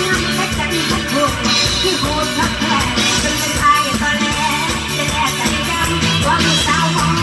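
Loud live band music with a steady beat: an upbeat Isan toei dance song, with a singer's voice over the band, played through the stage speakers.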